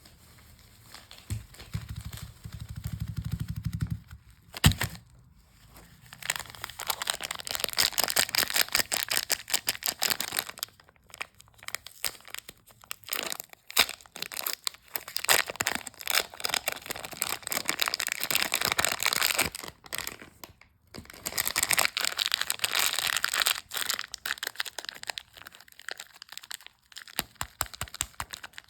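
Close-up crinkling and crackling of soap packaging being handled and opened, in several long bouts with short pauses, with a sharp snap about five seconds in.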